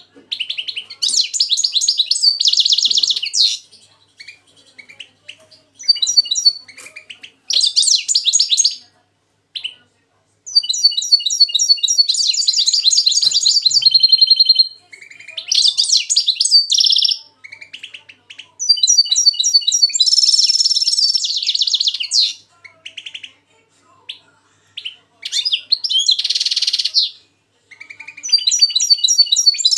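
Caged European goldfinches and a goldfinch–canary hybrid (mixto) singing, in repeated bursts of fast, high twittering song one to four seconds long, broken by short pauses.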